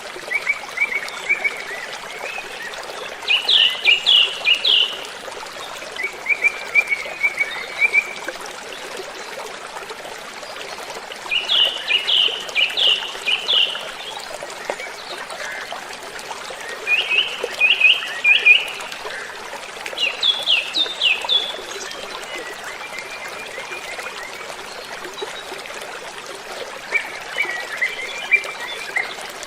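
Waterfall rushing steadily with a songbird singing over it: about eight short phrases of quick down-slurred notes, some pitched higher than others, a few seconds apart.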